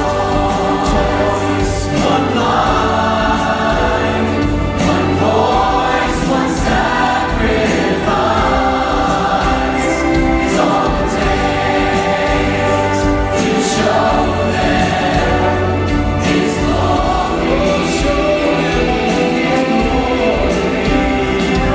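Church choir singing a Christian song with band accompaniment: many voices together over a steady bass line and cymbals.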